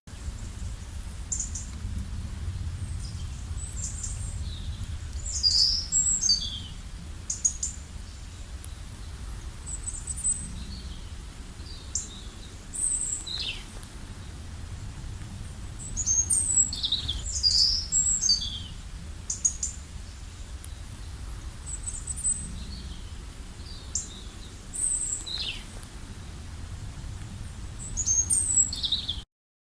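Small birds chirping and singing in short, high phrases, several of them falling in pitch, over a steady low rumble. The sound cuts off suddenly near the end.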